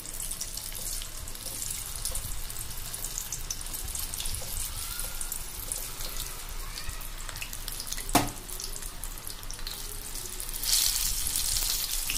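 Battered chickpeas deep-frying in hot mustard oil in a kadhai: a steady sizzle with fine crackling. A single sharp knock comes about eight seconds in, and the sizzle grows louder near the end.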